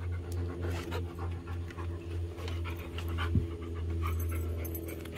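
Young yellow Labrador retriever panting, with a steady low hum underneath and a few light clicks.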